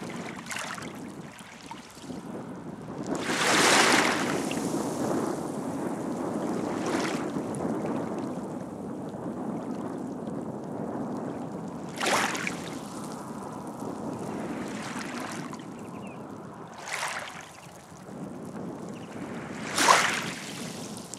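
Small sea waves lapping at the shoreline: a steady gentle wash broken by a few sharper splashes several seconds apart, the loudest near the end.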